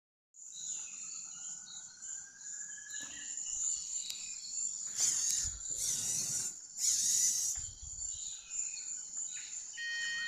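Dynamixel AX-12+ servomotors of a Robotis humanoid robot moving its arms: a steady high-pitched whine with a slowly rising whir early on, then three loud bursts of gear noise between about five and seven and a half seconds in. Steady electronic beeping tones begin near the end.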